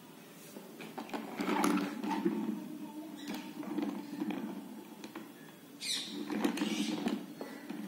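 Ringneck parakeet pecking and biting at a plastic toy parrot on wheels: irregular beak clicks and taps on hard plastic, with scraping and rattling of the toy as it is pushed about.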